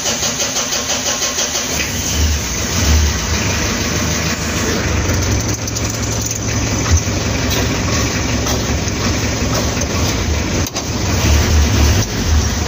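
Mitsubishi L300's 4D56 four-cylinder diesel engine running just after starting, heard from inside the cab. A fast, even clatter in the first couple of seconds settles into a steady idle.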